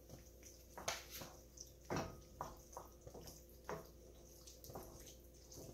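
Wooden spoon stirring and folding shredded cheese into thick couscous in a nonstick skillet: faint, wet scrapes and a few light taps against the pan, irregularly spaced.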